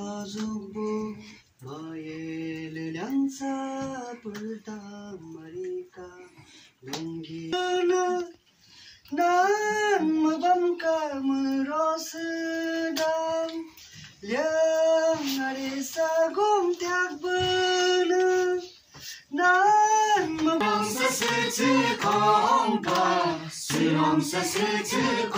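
Unaccompanied singing: a woman's voice leading with long held, gliding notes, with more voices joining near the end.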